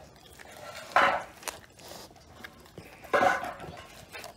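A Rottweiler gnawing a giant scapula bone: two loud crunching scrapes of teeth on bone, about a second in and just after three seconds, with faint clicks of teeth between.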